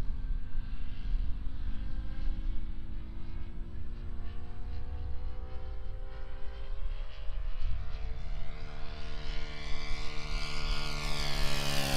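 A Top Flite giant-scale P-51 Mustang RC model's engine and propeller running, the tone climbing in pitch and growing louder as the model comes in for a low pass. Its pitch starts to drop at the very end as it goes by.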